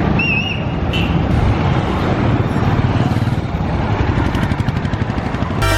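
Road traffic noise: a steady low rumble of passing vehicle engines, with a short warbling high tone about a quarter second in. Music starts just before the end.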